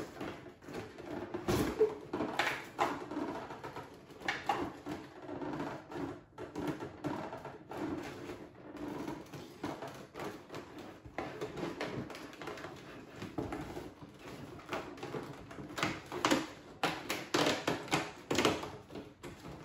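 Cardboard and packaging being handled: irregular rustling, scraping and small clicks and knocks as a stiff cardboard advent calendar door is worked open and the product inside taken out.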